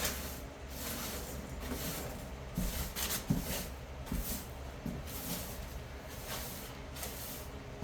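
Rough scraping strokes during demolition work, repeating about once a second, with a few light knocks in the middle.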